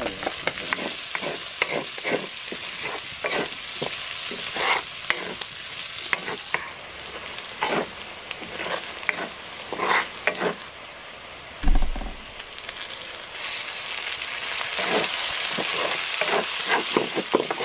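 Onion-and-tomato masala sizzling in oil in a kadhai over a wood fire, with a wooden spatula scraping and knocking against the pan in irregular strokes as it is stirred: the masala is being fried down until the tomato breaks down. A single dull thump about twelve seconds in.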